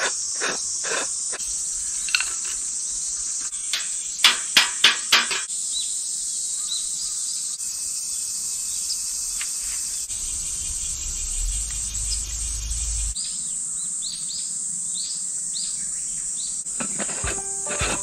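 A steady high chorus of cicadas fills the background, with a few short chirp-like calls near the middle. About four seconds in come four sharp clanks in quick succession, and music starts near the end.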